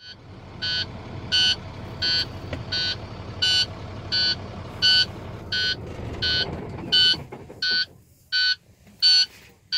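Truck dashboard warning buzzer beeping steadily, about one and a half beeps a second, over the low rumble of the running diesel engine, which dies away about three-quarters of the way through. The alarm signals an injection control pressure fault: pressure below or above the desired level, causing the engine to shut down.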